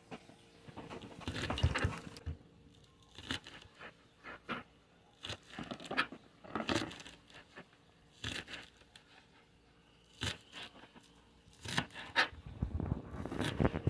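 Chef's knife chopping green onion on a plastic cutting board: short crisp cuts, each blade stroke crunching through the stalks onto the board, coming singly and in small runs with pauses between, with a quicker run near the end.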